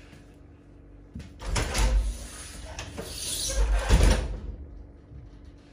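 Compressed air hissing out of a PCP Cricket regulator fitting as a screw is loosened to vent pressure, surging about a second and a half in and again near four seconds before dying away.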